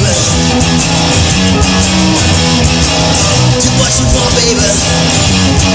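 Rock music with electric guitar and drums, an instrumental passage between sung lines.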